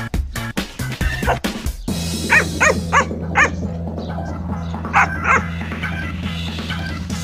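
Small dogs yipping and barking in short sharp calls while scuffling, about four in quick succession and then two more a couple of seconds later. Background music with a steady beat runs underneath.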